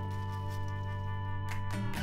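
Instrumental background music: a held chord with a few struck accents, changing to new notes near the end.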